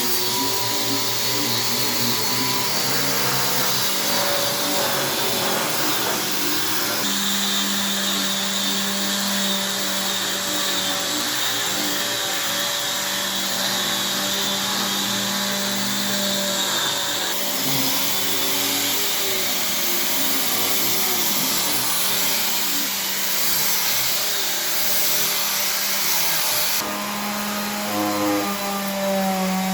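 Electric power tools running steadily with a motor hum. The sound changes abruptly three times as one tool or cut gives way to another.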